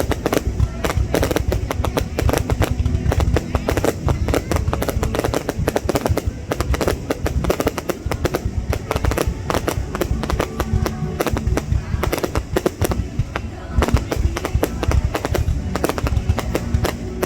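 Fireworks display going off nonstop: a dense run of rapid bangs and crackles, many per second, over a low rumble, with music and voices underneath.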